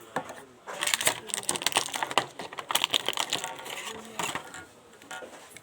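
Product packaging being handled: a quick run of small clicks and crackles lasting about four seconds, easing off near the end.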